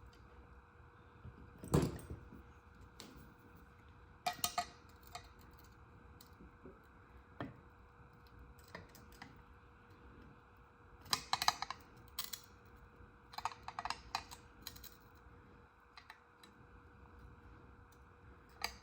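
Scattered clicks and clinks of glass and hand tools being handled on a workbench while a scored piece of stained glass is run and broken, with one louder knock about two seconds in.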